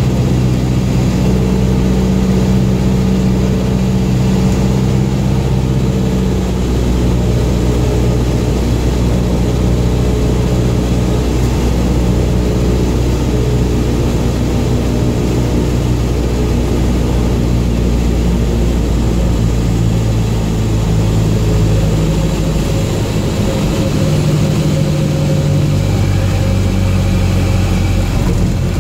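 Single-engine light airplane's piston engine and propeller droning, heard from inside the cockpit, as the plane lands and rolls out on the runway. The engine note is steady and loud, shifting in pitch a few times, about two-thirds and four-fifths of the way through.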